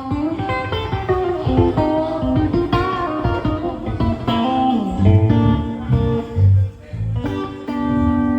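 Guitar played through the PA during a band sound check: a run of picked notes and strums, with some heavy low notes about five to seven seconds in, while its level is being brought up a notch at a time.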